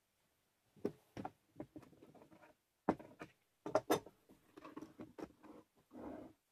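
Tools and bar clamps being handled and set down on a plywood workbench: irregular knocks, clatters and scrapes, a few sharper clacks among them.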